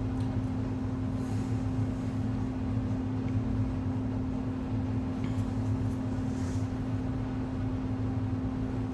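Steady low hum with one held tone, unchanging throughout, with a couple of faint clicks.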